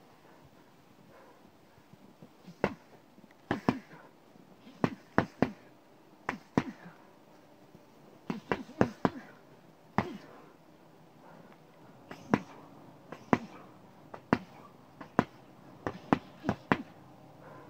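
Boxing gloves punching the trunk of a spruce tree: sharp thuds, singly and in quick combinations of two to four, with irregular pauses between them.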